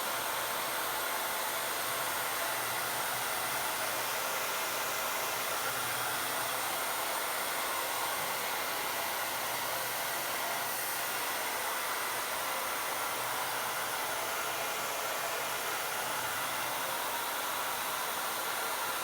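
Electric hot-air blower running steadily, a continuous rush of air with a faint electric hum, heating a dried-out refrigerator door gasket to soften the rubber so it can reseal.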